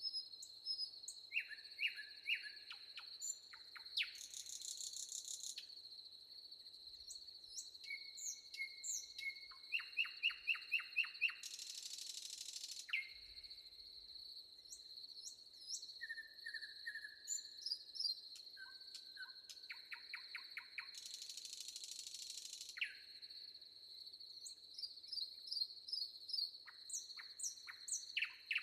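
Several forest songbirds singing: quick chirps and rapid runs of notes from different birds, with three harsh buzzy bursts each lasting about a second and a half, over a steady high-pitched whine.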